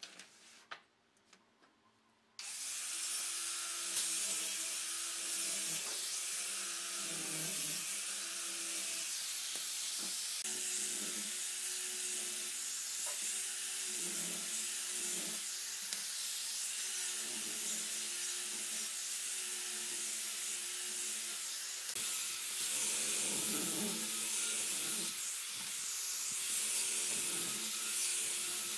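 Small angle grinder with a hook-and-loop sanding disc running steadily as it sands a wooden strip: a constant hiss of abrasive on wood over the motor's wavering hum, swelling and dipping as the disc is pressed and moved. Before it starts, a couple of seconds in, there are only a few faint knocks of the wooden strips being handled.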